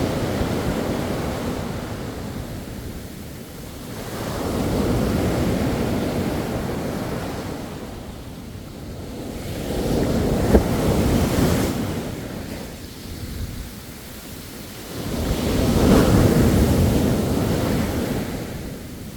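Sea waves breaking on the shore, the surf swelling and washing back about every five to six seconds over a steady rumble.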